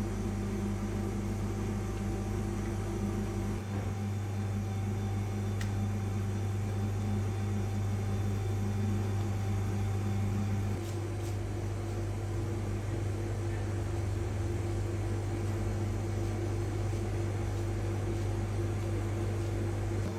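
A steady low machine hum, with a couple of faint clicks.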